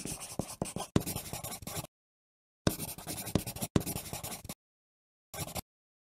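Text-animation sound effect for title lettering: scratchy noise studded with sharp clicks, in two bursts of about two seconds each and a short third one near the end, with dead silence between.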